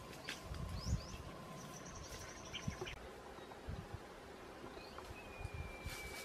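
Forest ambience with wild birds calling: several short chirps, a brief buzzing trill a couple of seconds in, and one long whistled note near the end. Scattered low thumps sit beneath the calls.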